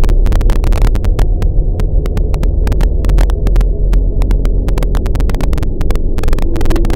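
Loud distorted noise: a heavy low rumble cut through by dense, irregular crackles, like harsh noise music.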